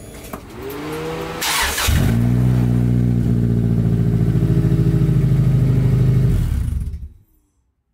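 Subaru flat-four engine running with the exhaust removed behind the catalytic converter, so it is open-piped through only the header and cat. Its pitch rises for the first couple of seconds, then it runs loud and steady for about four seconds before shutting off and dying away.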